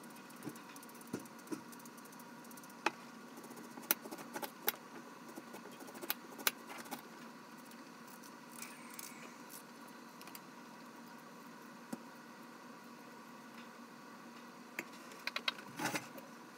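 Irregular sharp clicks and taps of a kitchen knife cutting through an onion held in the hand, the pieces dropping onto a plate. They thin out in the middle, and a few knocks come near the end as the knife is laid on the plate and a cast-iron skillet is shifted on the stove.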